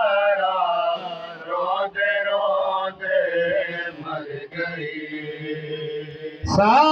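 Male voice chanting a noha, a Shia mourning lament, in long drawn-out, wavering notes without clear words. It falls softer through the middle, then a loud new phrase rising in pitch begins near the end.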